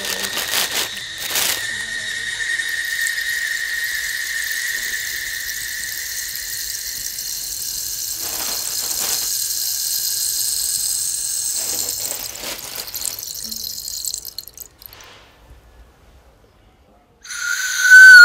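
A steady high whistling tone over a hiss fills the first several seconds, with a few short rustles. After a brief near silence, a painted clay bird whistle is blown near the end: a loud, wavering whistle.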